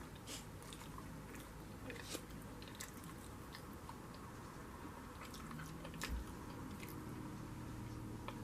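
A person chewing and biting soft food close to the microphone, with scattered small wet mouth clicks.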